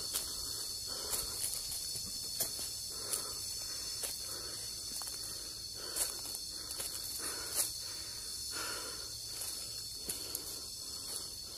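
Steady, high-pitched drone of a forest insect chorus, with footsteps crunching irregularly on dry leaf litter and rock along a trail.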